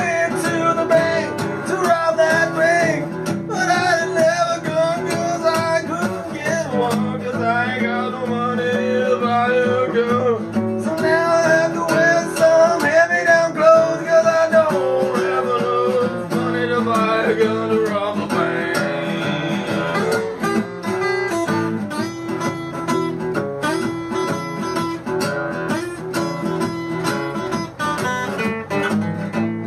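Background music led by acoustic guitar, with a wavering melody line over the guitar through most of the first twenty seconds.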